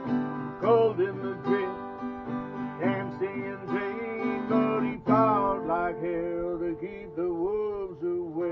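Acoustic guitar playing an instrumental passage of a country song: plucked and strummed notes, some bending up and down in pitch, with a sharp chord about five seconds in that is left to ring.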